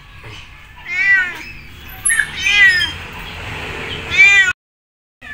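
A ginger domestic cat with hot-water burns meows three times, about a second and a half apart, from inside a plastic pet carrier. The sound cuts off suddenly near the end.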